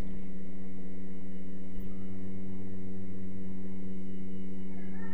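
Steady electrical hum with a buzzy edge, holding one pitch throughout, with a faint click about two seconds in.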